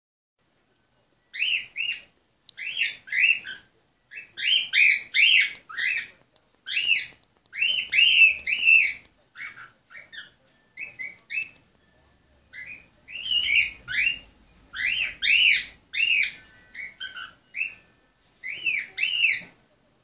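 Cockatiel whistling: phrases of short rising-and-falling whistled notes, grouped in quick runs with brief pauses, beginning about a second in.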